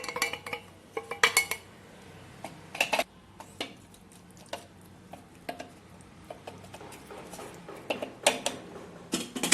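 A spoon clinking and scraping against a bowl and cooking pot as vegetable curry is spooned in, in irregular knocks and clinks, busiest about a second in and again near the end.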